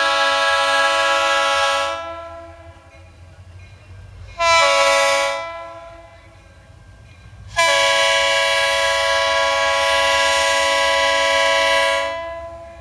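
Multi-chime air horn on a Norfolk Southern diesel freight locomotive, sounding three blasts: a long blast that ends about two seconds in, a short one near four and a half seconds, then a long one from about seven and a half seconds until near the end. Long, short, long is the close of the grade-crossing signal. The locomotive's engine rumbles low beneath the horn.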